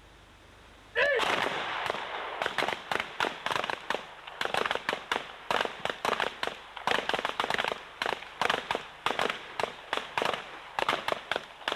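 Pistol fire from a line of shooters firing at the same time: many overlapping sharp shots, uneven and several a second. It starts suddenly about a second in and goes on with short lulls.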